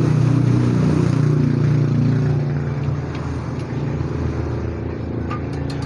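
A motor vehicle engine running, a steady low hum that eases slightly after about two seconds. A few light metal clicks come near the end.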